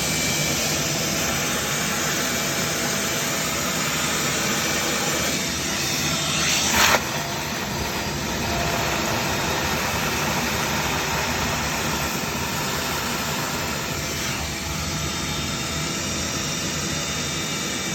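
Large industrial vacuum running steadily, its hose sucking water out of the flooded dig around a cracked sewer main line. About seven seconds in, a louder rushing surge builds and then stops suddenly.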